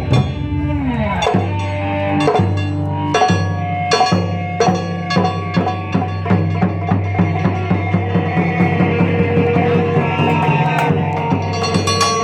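Live Japanese drum-band music: drums struck in a steady, fast rhythm over held pitched tones, with a downward pitch slide about a second in.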